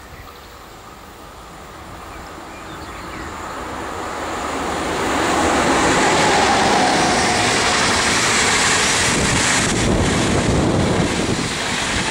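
ICE high-speed train passing at speed: a rush of wheels and air that swells over the first five seconds, then stays loud as the long set of coaches goes by.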